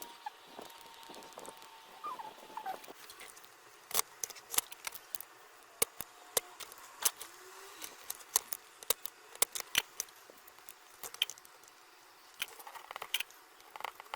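Small hand tools and electronic parts clicking and tapping at a repair bench: irregular sharp clicks, several a second in the middle stretch, with a faint thin tone and a few small squeaks in the first few seconds.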